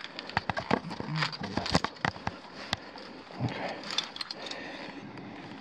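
A quick, irregular run of small clicks and knocks, then softer rustling and a few more clicks: gear and handling noise from someone climbing down a rope in a timbered mine shaft.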